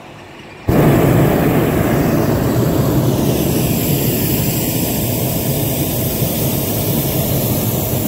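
Hot-air balloon's propane burner firing overhead. It cuts in abruptly about a second in and runs as a loud, steady blast of noise.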